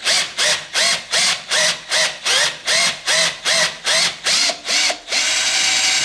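Cordless drill boring out the pin hole of a classic Mini door hinge casting. The trigger is pulsed in short bursts, about two or three a second, each a brief rising whine. About five seconds in, it is held on for steady drilling.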